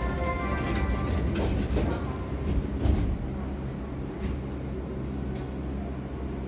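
Sliding passenger doors of a Keihan train closing: a short run of tones, then the door leaves meet with a knock about three seconds in. A steady low hum from the stopped train runs underneath.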